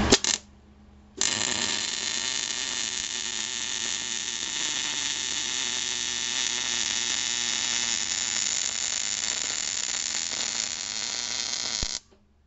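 MIG welding arc on steel tubing: a steady hiss that starts about a second in, after a brief burst and a short pause, and cuts off suddenly just before the end.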